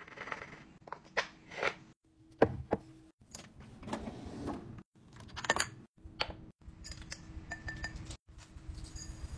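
Glass storage jars and lids handled on a countertop and in a drawer: a string of short clinks and knocks, the sharpest about two and a half seconds in, with the soft rustle of dry mix and seasoning being poured and spooned in. The sound breaks off abruptly several times between short pieces.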